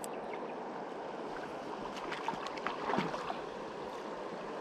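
Steady rush of shallow river rapids, with a few faint ticks about two to three seconds in.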